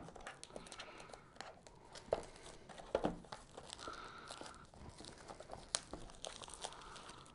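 A small product box being opened by hand: faint crinkling and rustling of its packaging, with scattered light clicks and taps.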